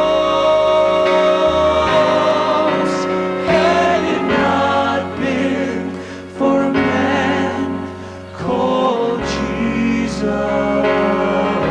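Choir singing a gospel song with instrumental accompaniment, held chords sustained, the sound dipping briefly twice in the second half.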